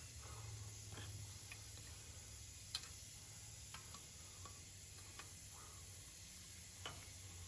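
Faint, scattered clicks and light taps of hand tools at work, over a low steady hum; the sharpest tap comes a little under three seconds in, another near the end.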